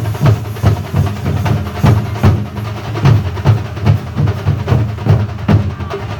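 Thambolam drum band playing a steady, driving rhythm: deep drum strokes about two to three times a second under sharp, crisp hits.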